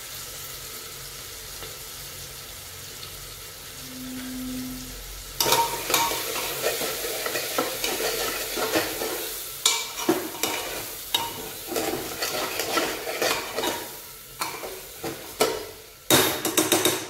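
A steel spoon stirring valor beans and tomato with spice powders in an aluminium pressure cooker over a gas flame, scraping the pan while the oil sizzles. For the first five seconds or so there is only a steady faint hiss; then the stirring starts, with a run of sharper clatters near the end.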